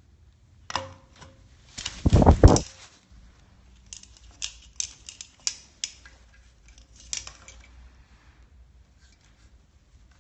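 Blue-and-gold macaw's beak clicking and knocking against a plastic cup: a sharp click about a second in, a louder cluster of knocks with a dull thud around two seconds in, then a run of lighter clicks.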